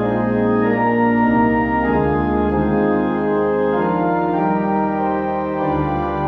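Organ playing slow sustained chords over held bass notes, the chords changing about once a second: a closing postlude.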